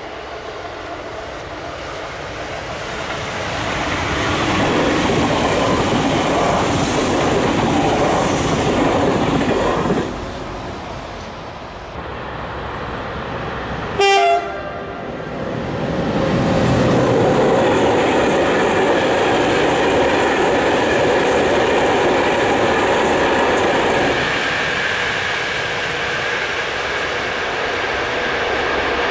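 A TER passenger train running past, its rumble building over the first ten seconds before stopping abruptly. About fourteen seconds in, a short horn blast with falling pitch comes from the electric locomotive BB 7344. It is followed by the steady rumble and wheel noise of the locomotive and its freight train of tipper wagons rolling past.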